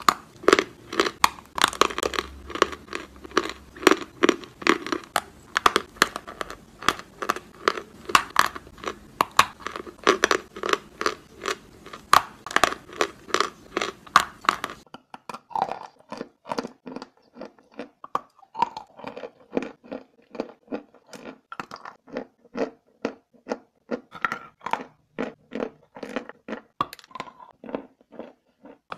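Lumps of white chalk being bitten and chewed close to the microphone, a fast run of sharp, dry crunches. About halfway through, the crunching abruptly turns thinner and duller.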